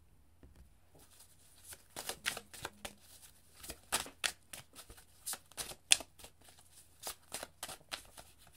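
A deck of tarot cards being shuffled by hand. After a short pause, an irregular run of quick, crisp card snaps and flutters follows, with one sharper snap about two-thirds of the way through.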